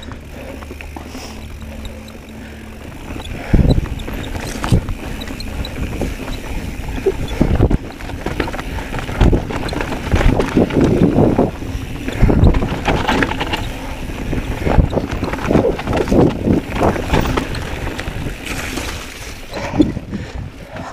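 Mountain bike descending a rough dirt singletrack: tyre and wind noise, with frequent knocks and rattles from the bike jolting over bumps and roots. The knocks start about three and a half seconds in.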